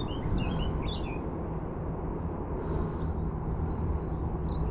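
Small birds chirping: a quick run of short chirps in the first second, then a few fainter chirps later, over a steady low outdoor rumble.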